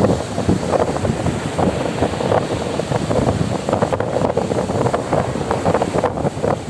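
Wind buffeting the microphone in uneven gusts, with sea surf running beneath it.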